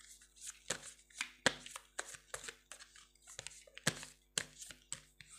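Tarot deck being shuffled by hand: a run of sharp, irregular card slaps and clicks, about three a second.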